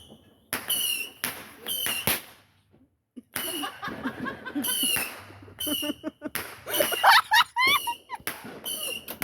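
Consumer fireworks going off in a quick series of sharp bangs, each carrying a brief high whine, with a short lull about three seconds in.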